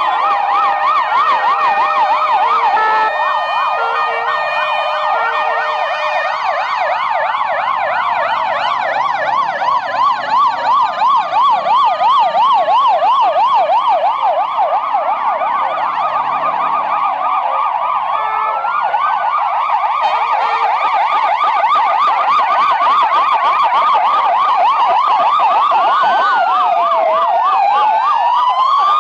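Many ambulance sirens sounding at once as a column of ambulances drives past: fast yelps overlap slower rising-and-falling wails, with a few steady held tones in the first few seconds.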